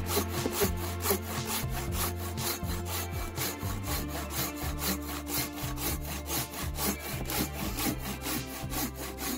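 Small hand saw cutting through a dead, dry branch in quick, steady back-and-forth strokes. Background music plays underneath.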